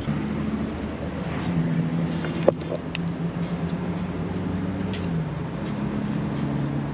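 A vehicle engine running steadily, its hum shifting pitch a couple of times, with a single sharp click about two and a half seconds in.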